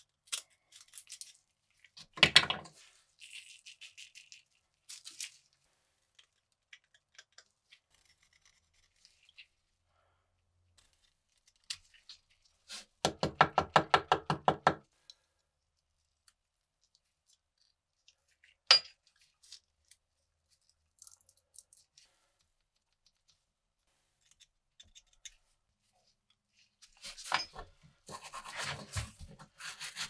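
Small hard objects handled on a workbench: scattered knocks and clicks, a loud knock about two seconds in and a sharp click later on. About halfway through comes a rapid rattle of about two seconds, and near the end a stretch of scratchy scraping.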